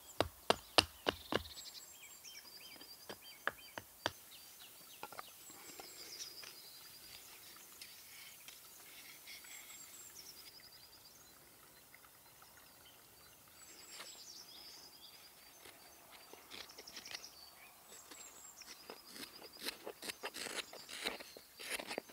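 A few sharp knocks in the first second or two, then a small songbird repeating a short, high, descending song phrase every few seconds. Near the end comes quick scraping and clicking of a knife carving the edge of a thin wooden disc.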